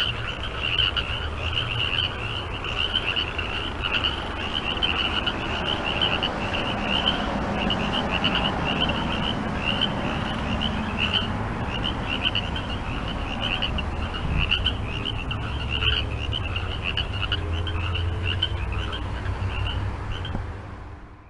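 A chorus of frogs calling, with rapid pulsed croaks repeating densely and overlapping and a steady low rumble underneath. It fades out just before the end.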